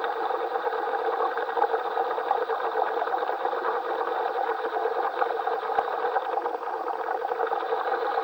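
Steady rush of air and bubbles in a commercial diver's helmet, heard over the diver's radio.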